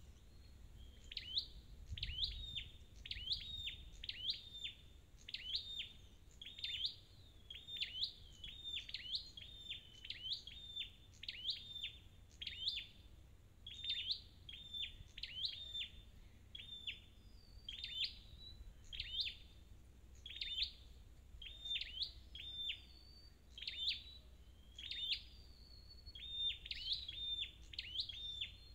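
Flowerpecker calling: sharp, high, ticking notes repeated in quick clusters about once a second.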